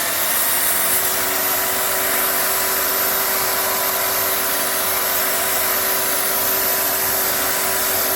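Makita 9403 4x24 belt sander running steadily at full speed, set on its side to take the sharp edges off boards.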